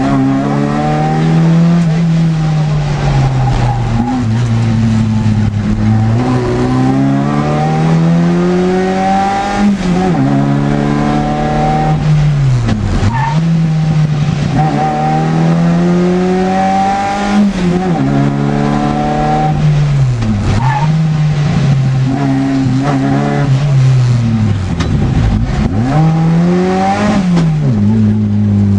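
Škoda 100 rally car's rear-mounted four-cylinder engine heard from inside the cabin, driven hard. The engine note climbs repeatedly through the gears, with sharp drops several times as the driver lifts off or brakes.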